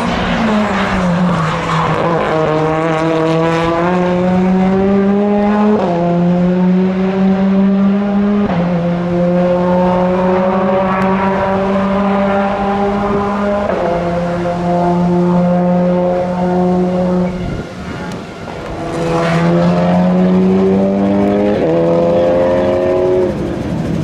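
WTCR touring cars' 2.0-litre turbocharged four-cylinder engines under hard acceleration. The pitch sinks for the first couple of seconds, then climbs in each gear and drops sharply at each upshift, with shifts roughly every three to five seconds. The sound dips briefly about three quarters of the way through before another car starts a fresh run up through the gears.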